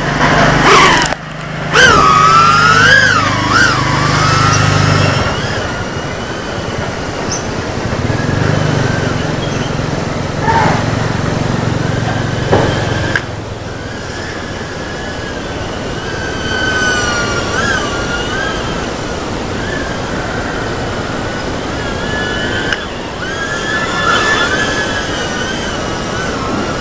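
Micro FPV whoop drone's small motors whining as it flies, the pitch sliding up and down with the throttle. It is loudest at takeoff, about a second in.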